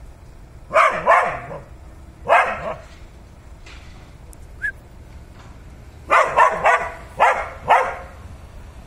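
Dog barking up at a cat, in three volleys of sharp barks. The last volley is the longest, about five barks in quick succession.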